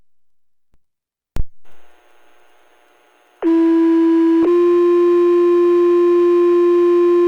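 Two-tone sequential paging tones over a radio scanner's speaker: one steady tone for about a second, then a slightly higher tone held for about three seconds. This is the alert that sets off the firefighters' pagers for a dispatch page. Before it come a radio squelch click and a couple of seconds of faint static hiss.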